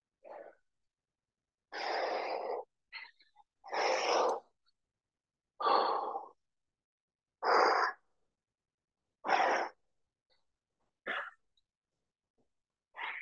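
A man breathing hard while doing push-ups: about eight forceful exhales, roughly every two seconds.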